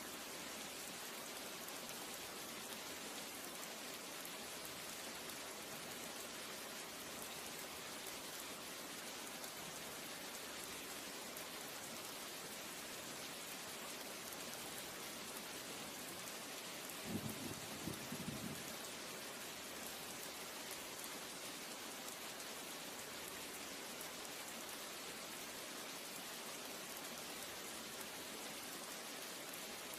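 A steady, even hiss, with a short cluster of soft low thumps about seventeen seconds in.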